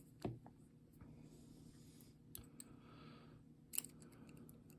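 Faint clicks and light scraping of a lock pick working inside a ZETA padlock's keyway. The loudest click comes just after the start and another a little before the end.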